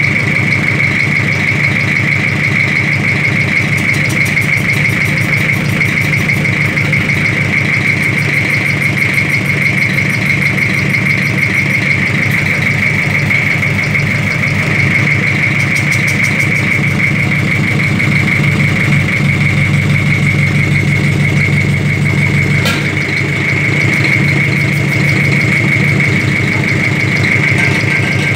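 Toyota 1C four-cylinder diesel engine, bare on a stand with its intake ports open, idling steadily with a rapid diesel clatter and a steady high whine over it. The mechanic says it runs fine now that its injection pump problem has been fixed.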